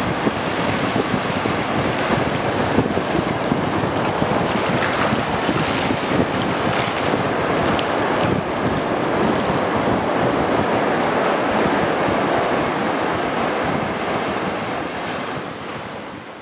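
Ocean surf: waves breaking and washing in a steady rush, fading out near the end.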